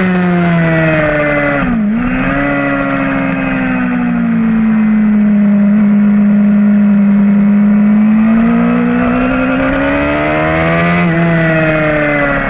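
Suzuki GSX-R750 inline-four with a full Yoshimura exhaust, heard onboard at race pace: the revs fall over the first two seconds with a brief sharp dip in pitch, hold fairly steady through the middle, then climb again with a short break about eleven seconds in.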